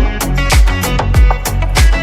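Background music with a steady beat: a bass drum on about every beat, bass, and plucked guitar-like chords.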